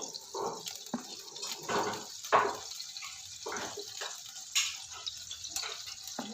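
Water splashing and dripping in short, irregular spurts.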